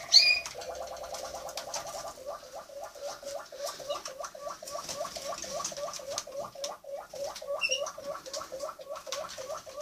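Malinois Waterslager canary singing in a low pitch: a quick roll, then a long run of evenly repeated notes about four a second. Now and then another bird gives a short high chirp.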